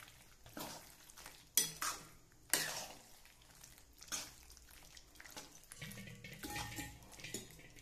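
A spatula stirring pasta in a thick sauce, scraping and knocking against the side of a metal kadhai, with a few sharp clatters about a second apart that die away after about four seconds.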